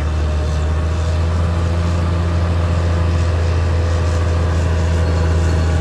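Caterpillar D6R XL bulldozer's diesel engine running steadily at a constant low pitch.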